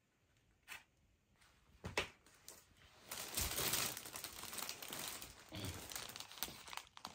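Packaging being crinkled and handled: a few short sharp rustles, then steady crinkling from about three seconds in that fades near the end.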